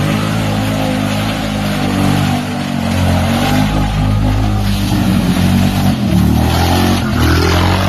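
Off-road 4x4's engine held at high revs under heavy load as it ploughs through a deep mud hole, with mud and water spraying; the revs waver and pick up again in the last couple of seconds.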